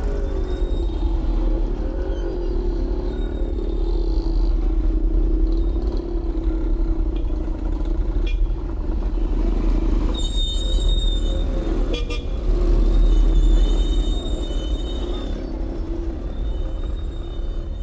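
Busy street traffic: vehicles running steadily, with horns tooting.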